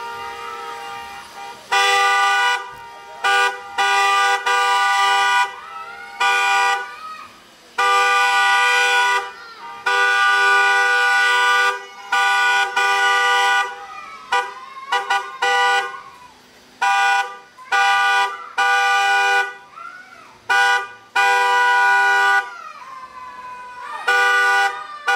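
Vehicle horns honking over and over, some blasts held for one to two seconds and others quick toots, with short breaks between them.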